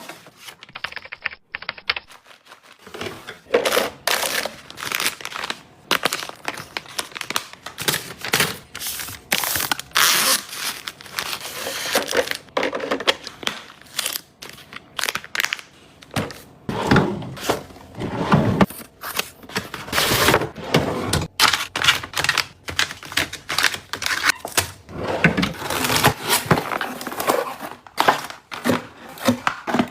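Close-up handling noise: packaging crinkling and rustling, mixed with many quick taps and clicks of small objects being picked up and set down.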